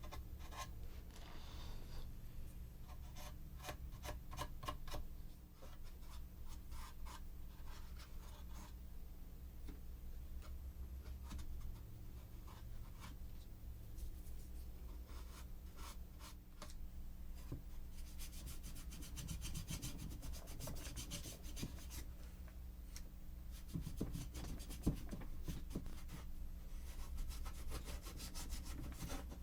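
Putty knife spreading and scraping spackle into the holes and cracks of wooden boards: faint, repeated rubbing and scraping strokes, over a low steady hum.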